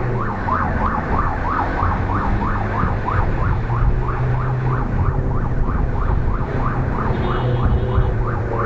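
Ambulance siren on a fast yelp, a rising wail repeated about three times a second, heard from inside the cab over the steady drone of the ambulance's engine.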